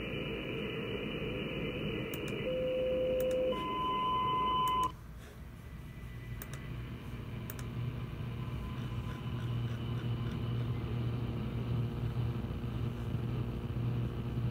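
Radio static from an SDRplay RSP2 receiver tuned in the longwave band. It carries a steady low tone for about a second, then a higher tone about an octave up for a little over a second. About five seconds in, it drops abruptly to a quieter hiss with a low hum that slowly grows louder.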